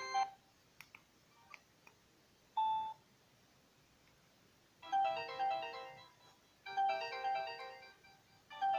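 Samsung GT-E1200R ringtone played through a Sagem my-E77 mobile phone's loudspeaker: a short melodic phrase starts about halfway through and repeats three times, about two seconds apart. Before it, the previous tone cuts off, followed by a few faint clicks and one short beep.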